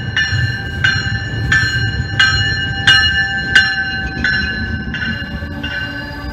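MBTA commuter rail train pulling into the platform, its warning bell ringing steadily at about three strikes every two seconds over the low rumble of the passing cars. The strikes grow weaker near the end.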